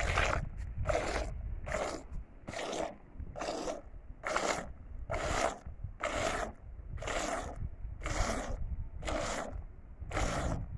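Goat being milked by hand: rhythmic hissing squirts of milk into the froth of a plastic bucket, about one squirt a second, over a low rumble.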